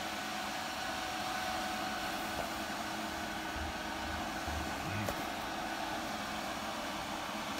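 Steady whirring hum of a fan running, with a faint click about five seconds in.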